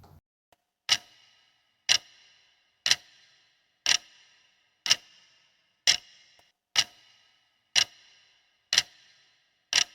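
Clock-tick countdown timer sound effect: ten sharp ticks about one a second, each with a short bright ring, timing the answer period for a quiz question.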